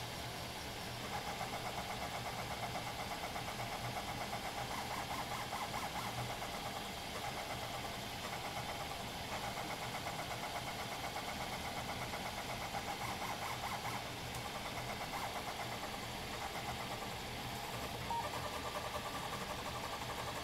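Stepper motors of a HyperCube CoreXY 3D printer running at high print speed. They make a fast, fluttering buzz whose pitch shifts every second or so as the print head darts back and forth laying down a small part.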